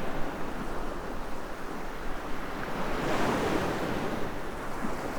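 Ocean surf breaking on a beach, a steady wash with a wave swelling in about three seconds in.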